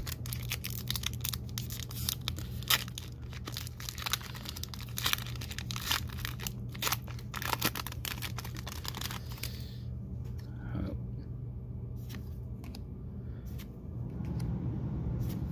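Foil Pokémon booster pack wrapper being torn open and crinkled as the cards are pulled out, a dense crackling for about ten seconds. After that it goes quieter, with a few soft handling clicks over a steady low hum.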